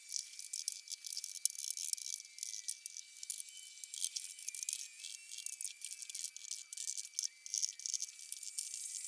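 Sandpaper rubbed by hand over the filled edges of a fiberglass boat: quick, irregular scratchy strokes.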